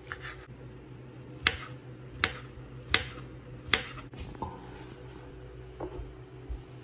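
Kitchen knife slicing a thin egg omelette into strips on a wooden cutting board, the blade knocking the board five times at about one every three-quarters of a second, the last knock softer.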